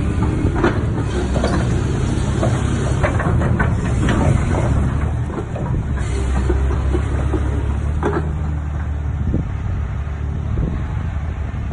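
A Caterpillar 345D hydraulic excavator's diesel engine running steadily, with scattered short knocks and clanks over the hum.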